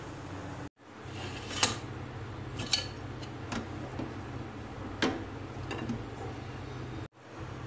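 A few light, sharp clinks of kitchen utensils and dishes being handled, over a steady low hum. The sound cuts out completely for a moment about a second in and again near the end.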